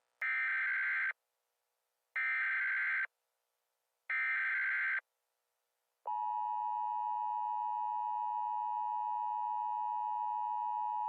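Emergency Alert System header: three one-second bursts of buzzing digital data tones, each about a second apart, then the steady two-tone EAS attention signal starting about six seconds in and holding.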